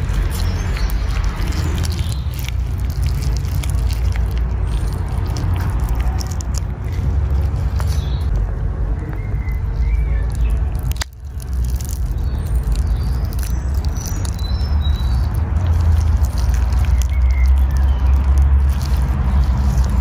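Outdoor ambience: a steady low rumble under the soft squelching and crackling of a rotten avocado being squeezed and pulled apart in latex-gloved hands, with small birds chirping now and then. The sound breaks off briefly about halfway through.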